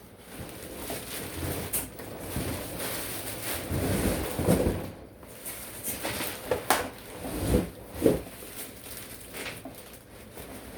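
Packaging being handled during an unboxing: rustling and scraping of cardboard and plastic with several sharp knocks, loudest about four to five seconds in and again around seven to eight seconds.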